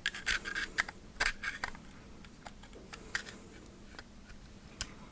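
Small metal clicks and scrapes of a Phoenix Arms HP22 pistol's slide and barrel being fitted back onto the frame, with a quick cluster of clicks in the first two seconds, then a few scattered ticks.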